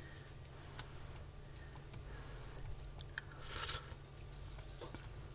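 Someone eating hot soup: small clicks of a spoon against a bowl and one short breathy sound about three and a half seconds in, over a steady low hum.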